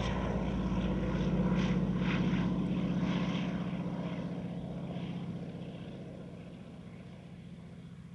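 A single-engine crop-dusting airplane's propeller engine running as the plane passes low, loudest about two seconds in, then fading steadily as it flies away.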